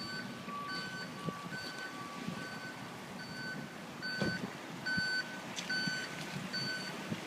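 An electronic warning beeper beeping steadily, a bit more than once a second, with a few faint clicks and knocks underneath.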